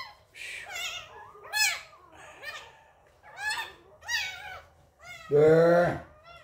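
Two-week-old puppy crying in short, high-pitched whines about once a second, with a longer, louder cry about five seconds in.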